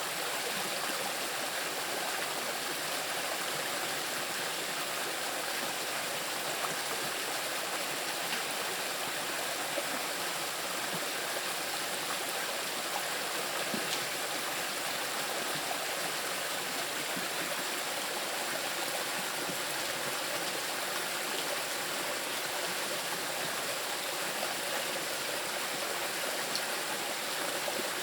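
Small river rushing and splashing over rocks: a steady, even rush of water.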